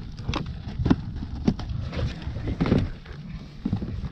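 Irregular knocks and taps of fishing gear being handled on a kayak, including a plastic bait box, over a low rumble of wind on the microphone.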